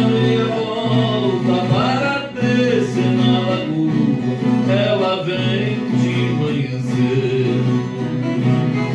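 Música caipira: a plucked viola caipira and guitar playing steadily under voices singing a bending melody.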